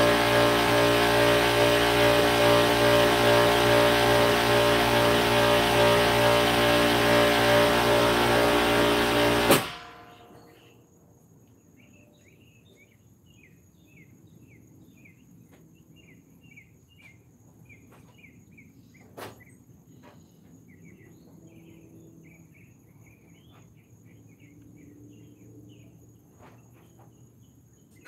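Air compressor motor running steadily, then cutting off abruptly about ten seconds in. After that only faint birds chirping and a steady high insect buzz remain, with a single click about two-thirds of the way through.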